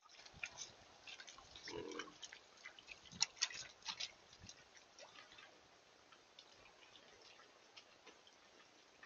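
Wild hogs wading through shallow creek water onto a sandbar: a run of splashes and sharp clicks over the first four seconds or so, then only faint scattered ticks as they root along the sand.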